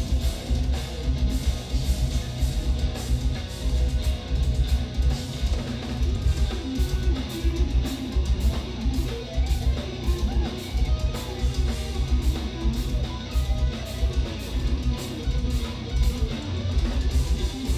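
Live instrumental progressive metal (djent): low-tuned eight-string electric guitars over drums with a fast, busy kick-drum pattern, heard loud and continuous.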